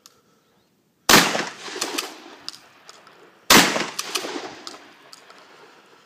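Two shotgun blasts about two and a half seconds apart, each trailing off over a second or so.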